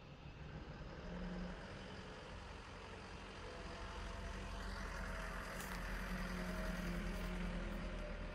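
Small Isuzu garbage compactor truck's diesel engine running as the truck drives past, growing louder from about four seconds in as engine and tyre noise swell.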